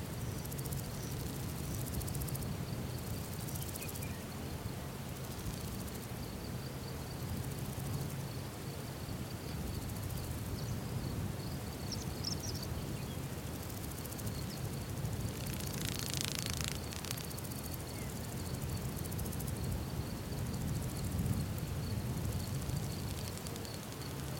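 Outdoor savanna ambience: insects trilling steadily over a low, steady rumble, with a flying insect buzzing close past about sixteen seconds in and again near the end.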